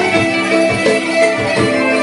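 Instrumental passage of a Turkish arabesk song, with a steady rhythm of notes struck a few times a second.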